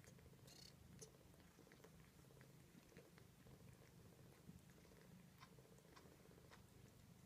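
Very faint, steady purring of a mother cat, with scattered soft clicks and rustles from her nursing kittens.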